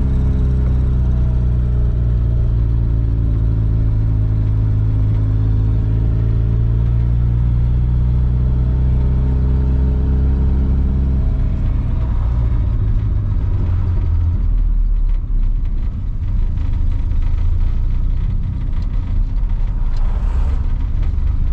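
Turbocharged Nissan SR20DET four-cylinder in a BMW E30 running under way, heard from inside the cabin with a steady engine note. About eleven seconds in, the note falls away to a low, uneven rumble as the car slows in traffic.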